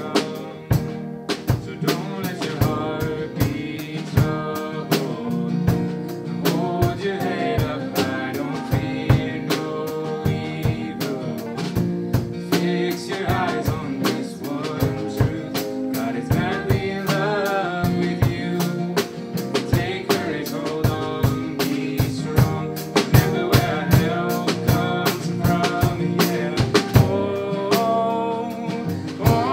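A live worship band playing: drum kit with regular snare and bass-drum hits, acoustic and electric guitars and keyboard, with voices singing the song's lyrics.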